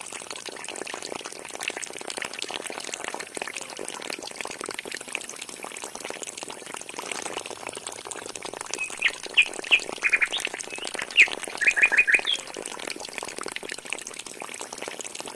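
A thin stream of water from a miniature DC-motor pump pouring and splashing into muddy soil. From about nine seconds in, a bird chirps a series of quick notes for three or four seconds.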